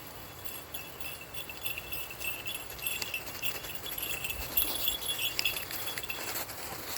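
Metal dog collar tags jingling continuously as several dogs walk along, a run of small, irregular clinks.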